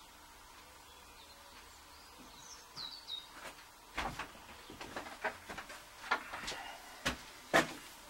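Faint steady room hum with a few short bird chirps about two and a half seconds in, then a run of irregular knocks and clatters from about four seconds on, the loudest one near the end, as someone moves about the wooden workshop.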